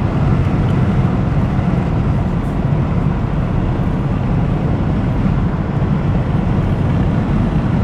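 Steady road and engine noise heard from inside a moving car's cabin, mostly low in pitch and even throughout.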